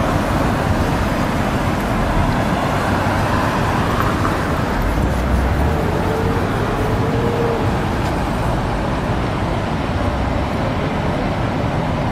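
City street traffic: cars driving past on a busy boulevard, a steady rumble of engines and tyres.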